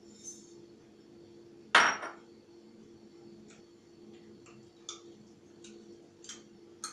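A utensil knocking against a glass mixing bowl while sugar and butter are mixed. There is one sharp, ringing clink about two seconds in, then light, irregular clicks and taps.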